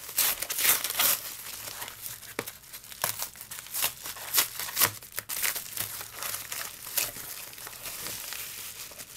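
Hands peeling packing tape off and tearing open a padded paper mailer: paper and tape crinkling and ripping in irregular bursts, loudest near the start and about halfway through.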